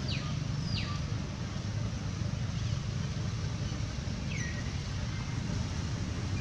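Outdoor background with a steady low rumble. Over it come three brief high-pitched calls that slide downward: two within the first second and one about four and a half seconds in.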